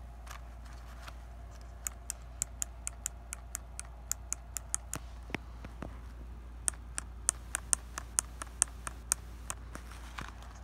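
Small DC motor mechanism of a homemade animatronic toy rabbit running, its plastic parts giving a run of sharp clicks at about three a second, over a faint steady hum.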